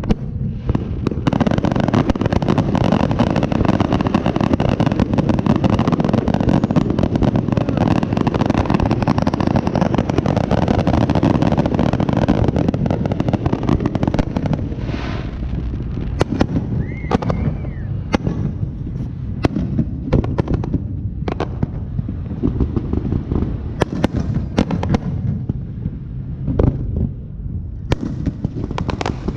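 Fireworks going off: a dense barrage of crackling bangs through the first half, thinning to separate loud bangs and pops later, with a brief whistle about 17 seconds in.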